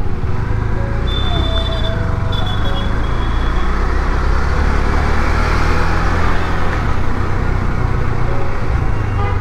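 KTM 390 Duke's single-cylinder engine running steadily under light load as the motorcycle rides slowly through traffic, gently picking up speed, with road and traffic noise around it.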